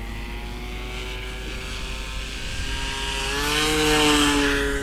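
Brushless electric motor and propeller of an RC BF-109 model in flight, heard from an onboard camera: a steady whine with rushing air that swells louder and rises slightly in pitch about three seconds in, then eases near the end. The propeller is unbalanced.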